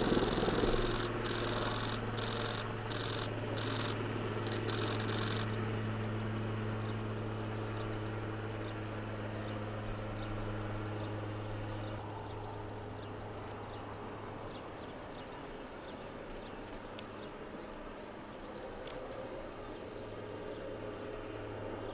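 Military helicopter lifting off and flying away, its steady low rotor and engine hum fading as it moves off.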